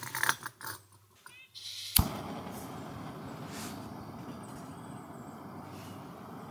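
Small gas-canister backpacking stove being lit: a few handling clicks and rustles, a short hiss of gas as the valve opens, one sharp igniter click about two seconds in, then the burner flame running steadily.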